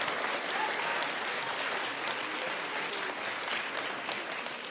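Audience applauding, the clapping easing off slightly toward the end.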